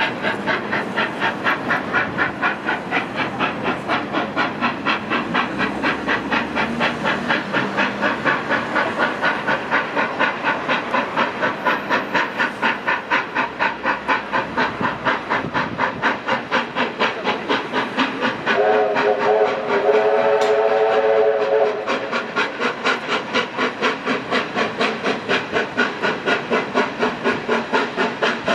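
Steam locomotive working toward the camera, its exhaust beating in a rapid, even rhythm of about three to four beats a second. About two-thirds of the way through, its steam whistle sounds one blast of about three seconds.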